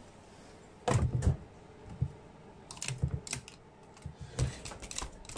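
A series of sharp clicks and knocks as a hand works the control knobs of an electric oven and takes hold of its door to open it, the loudest pair about a second in.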